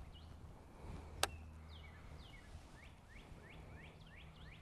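A bird chirping over and over in short, quick sweeping notes, with one sharp click about a second in, over a faint steady low hum.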